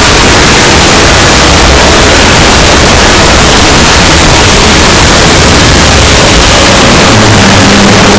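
Extremely loud, distorted static-like noise filling the whole range, with a low steady drone coming in about seven seconds in.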